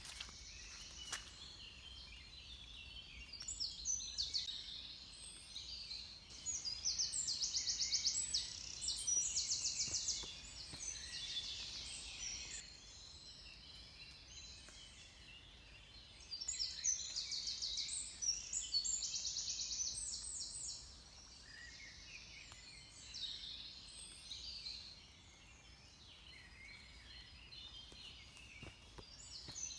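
Dawn chorus of several songbirds singing at once, with loud fast trilling phrases about a quarter of the way in and again past the middle, over a faint steady low rumble.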